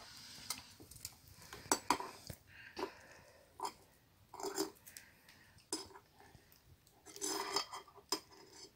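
Scattered light clicks and knocks, about a dozen spread irregularly, as paintbrushes and scallop shells are handled and tapped on a wooden table.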